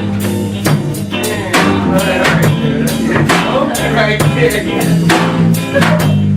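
Hip-hop instrumental beat: drum kit hits in a steady rhythm over a sustained bass line, with a wavering melodic line on top.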